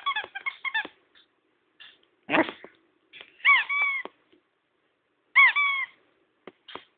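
Squeaker in a plush dog toy being squeezed: a quick run of short squeaks, a rougher squeak about two seconds in, then two longer squeaks that each rise and then hold.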